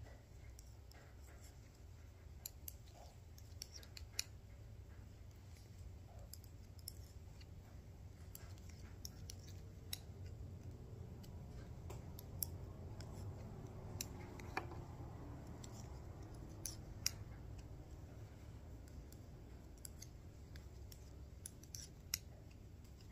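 Metal knitting needles clicking and scraping against each other as stitches are knitted: faint, irregular clicks, a few at a time, over a steady low hum.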